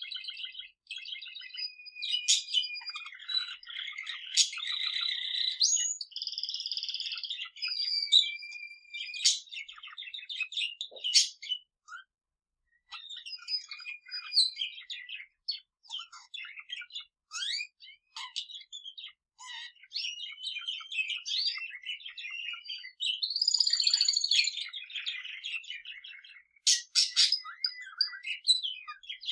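Pet budgerigar and male canary singing together: a dense run of quick chirps, warbling and trills, with a short pause about twelve seconds in.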